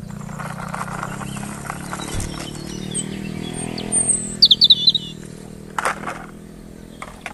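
A bird chirping a quick run of high notes about halfway through, over a low steady droning hum, with a couple of sharp clicks shortly after.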